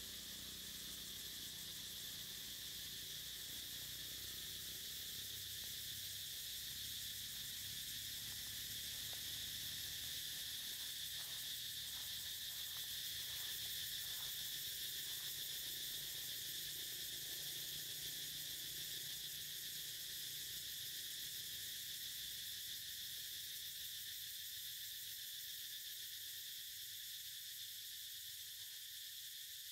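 Steady, high-pitched chorus of insects trilling continuously.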